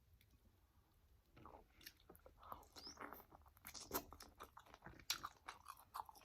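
Close-miked eating of an overcooked jumbo prawn: wet chewing with crisp crunches and mouth clicks, starting about a second and a half in.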